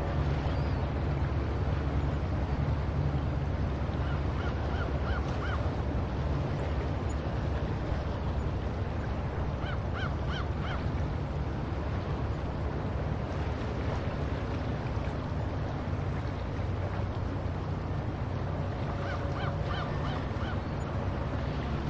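Seagulls calling in three bursts of quick repeated yelping notes, over a steady low rumble of ocean waves.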